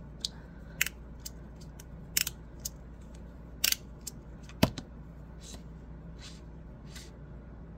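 Magnetic fidget slider being worked by hand, its plastic halves sliding and snapping into place: a series of irregular sharp clicks, the loudest a little past halfway.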